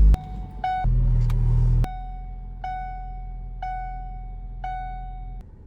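Car engine started and running: a loud low rumble about a second in, then settling to a steady idle that cuts off near the end. Over it an electronic warning chime rings one note about once a second.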